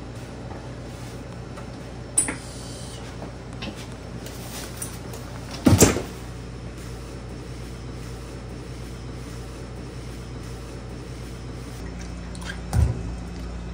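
Steady low hum of kitchen machinery with three sharp knocks from handling in the kitchen, the loudest about six seconds in.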